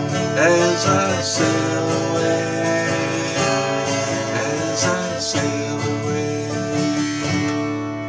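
Twelve-string Yamaha acoustic guitar strummed steadily through the song's closing instrumental bars, with a voice briefly singing along about half a second in.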